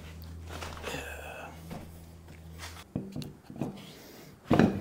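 A steady low hum that stops abruptly a little before three seconds in, then a few knocks and a louder thump near the end as a steel tractor front wheel with a new tire is handled and set onto the hub.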